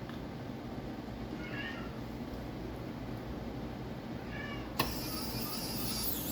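Domestic cat meowing twice, short calls about a second and a half and four seconds in. Near the end, a sharp click followed by about two seconds of high scraping or rattling.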